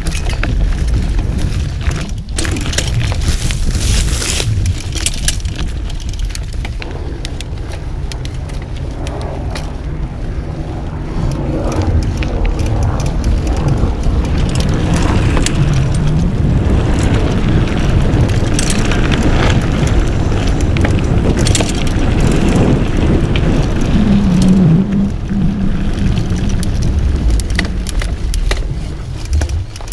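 Mountain bike ridden fast along a dirt forest trail: wind buffeting the microphone, a low rumble of tyres on the dirt, and clicks and rattles from the bike over bumps.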